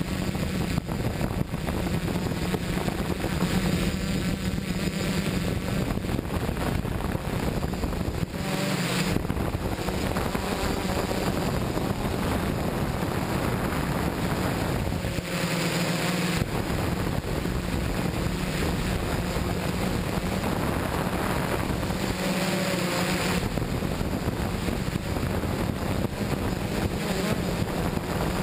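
Quadcopter's electric motors and propellers whirring steadily, heard up close from a camera mounted on the craft, with wind on the microphone. The drone changes briefly three times, about 8, 15 and 22 seconds in.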